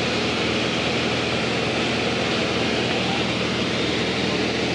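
Steady drone of a small propeller airplane's engine and propeller heard inside the cabin, holding an even pitch and level with a constant rushing of air over it.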